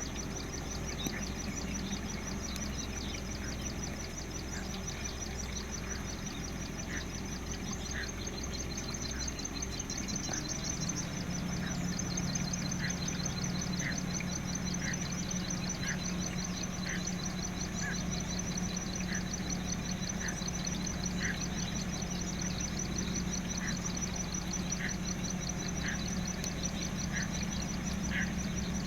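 Male greater painted-snipe giving its warning call: short, separate notes repeated about once a second.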